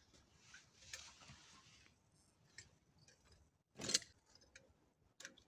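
Fabric rustling as a backpack is slipped off the shoulders, then one thud about four seconds in as the pack is set down on the ground, followed by a few light clicks.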